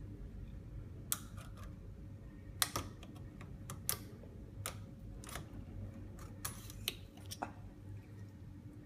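Irregular sharp metallic clicks and taps, about a dozen, as a circlip is worked into a Hydramatic automatic gearbox with circlip pliers.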